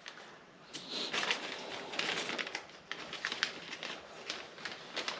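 Irregular rustling and crinkling with small clicks, starting about a second in: hands handling parts and O-rings during reassembly.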